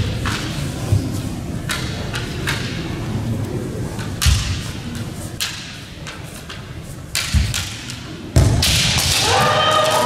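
Kendo bout: bamboo shinai clicking against each other and bare-foot stamps thudding on the hall floor, several times. Near the end a sudden loud stretch of shouting as the fencers attack.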